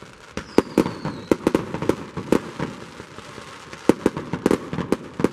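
Fireworks going off: a fast, uneven run of sharp cracks and bangs, several a second, over a continuous crackling hiss. A thin high whistle falls in pitch about half a second in.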